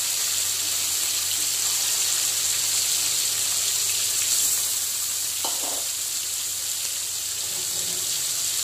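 Bata fish pieces frying in hot mustard oil in a steel kadai: a steady high sizzle as more pieces are slid into the oil. A brief knock about five and a half seconds in.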